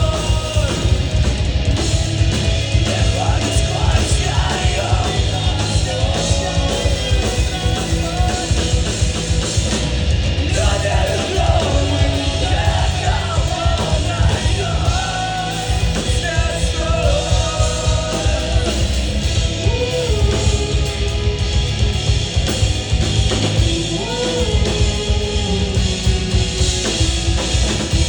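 Live punk rock band playing loudly, with a singer's shouted vocals over guitars and a driving drum kit.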